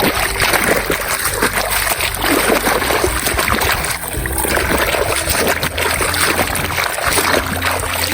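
Water splashing and trickling irregularly as toy vehicles are washed.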